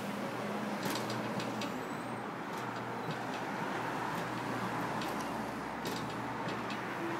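Coin-operated kiddie ride's motor running with a steady hum as it rocks, its mechanism giving off several short clicks and knocks.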